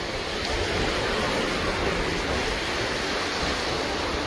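North Sea surf breaking and washing over the shallows at the shore, a steady rushing wash with no single standout event.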